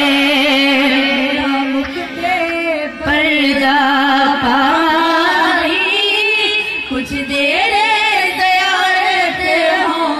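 A woman singing a devotional Urdu verse (naat) in a wavering, ornamented melody.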